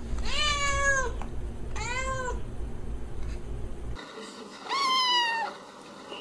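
A calico cat meowing twice, the first meow long and the second short, over a low steady hum. After a cut, a kitten gives one higher-pitched meow.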